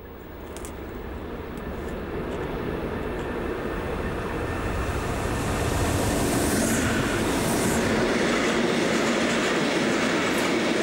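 Voith Maxima diesel-hydraulic locomotive approaching and passing close by at speed, its engine growing louder over the first few seconds, followed by the steady rolling of its freight wagons' wheels on the track.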